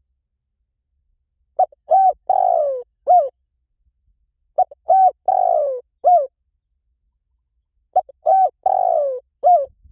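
Spotted dove cooing: the same phrase of four to five low coos, one drawn out and falling in pitch, repeated three times about every three seconds. It is a looped lure recording of the dove's call.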